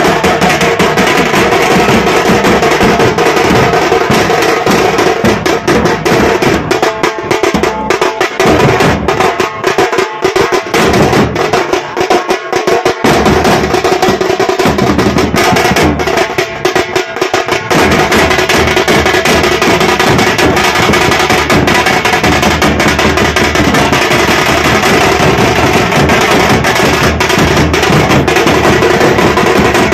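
Street drum band loudly playing fast rhythms on bass drums and snare-type side drums beaten with sticks. About seven seconds in, the dense rolling beat breaks into separate strokes with short gaps for roughly ten seconds, then the full rhythm resumes.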